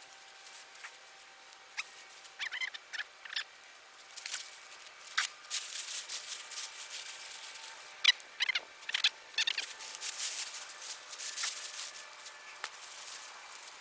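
Scratchy rustling and scraping with a few sharp clicks, from digging potatoes out of the soil. The scraping comes in short bouts that grow busier about halfway through.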